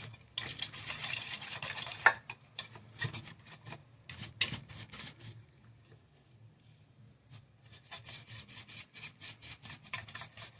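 Small paintbrush scrubbing dust out of the plastic fan housing of a Bambu Lab A1 3D printer's hotend, in quick, scratchy back-and-forth strokes. The strokes pause for about two seconds midway, then resume.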